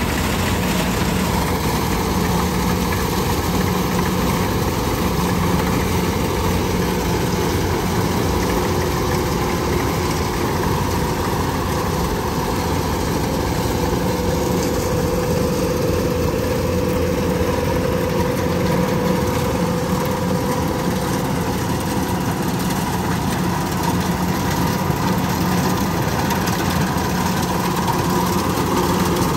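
Kubota DC-105X rice combine harvesters, diesel engines and threshing gear running in a steady drone under load as they cut lodged rice.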